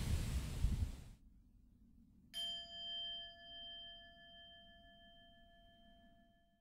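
Outdoor background hiss fades out in the first second. A little over two seconds in, a single bell-like chime is struck once and rings for about three seconds, wavering as it dies away.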